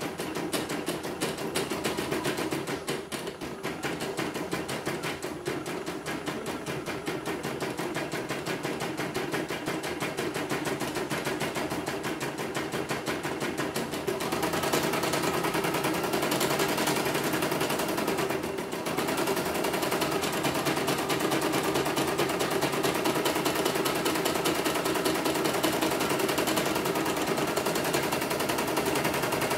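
CNY computerised embroidery machine stitching a design, its needle bar clattering in a fast, even rhythm as the hoop unit moves the fabric. This is a test run of a machine that came in completely dead. The stitching gets louder from about halfway, with a brief dip a few seconds later.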